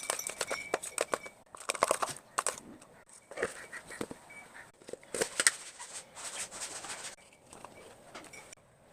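Slime being worked, with wet crackling and popping in about five bursts separated by short pauses.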